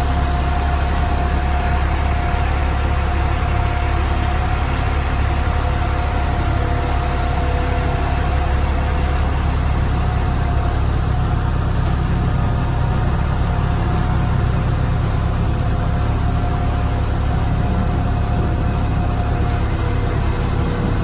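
Tadano GR300XL-1 rough-terrain crane's Cummins QSB5.9 turbocharged diesel engine running steadily, with a steady whine over it that fades about a second before the end.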